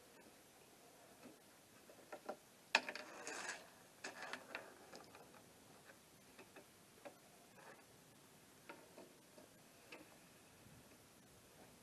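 Scattered light clicks and knocks. A quick cluster of them comes about three seconds in, and a few single ticks are spread through the rest, with quiet in between.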